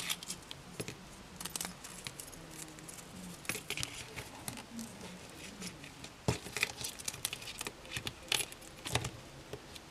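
Small clicks and light metallic clinks from a little dog collar's metal buckle and ring being turned over in the fingers, scattered throughout, with a few louder clicks in the last few seconds.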